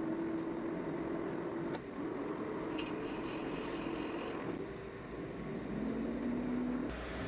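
Metal lathe running while machining a stainless steel pump shaft: a steady mechanical hum whose pitch drifts slightly, with a brief high-pitched ringing about three seconds in.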